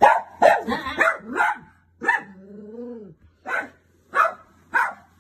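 Small curly-coated dog barking repeatedly with short, sharp barks, about eight in all. The first four come in quick succession, and the rest are spaced out about every half second to second.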